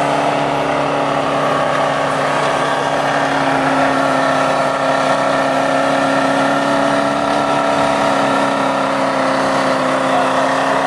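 Land Rover Discovery's engine running hard at steady high revs as the 4x4 claws its way uphill through deep snow, the pitch holding almost level with a slight sag toward the end.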